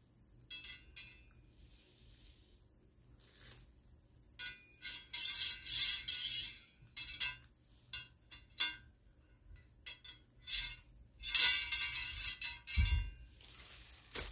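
Steel musket ramrod clinking and ringing as it is handled and tapped against the gun, in irregular clusters of metallic taps, with a dull knock near the end.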